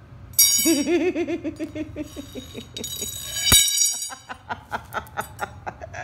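A cockatoo making noise with a hand-held toy: quick clinking and rattling strikes, with a loud wavering tone near the start and one sharp knock about halfway.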